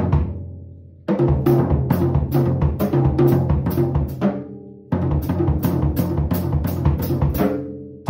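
Yamaha birch drum kit played as a whole for a sound check, in two short beats of a few seconds each. Steady cymbal strokes come about three a second over drum hits, and the drums ring on and die away after each beat stops.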